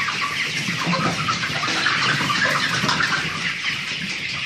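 A crowded flock of young chickens peeping and cheeping all at once, a dense, unbroken chatter of many small high calls.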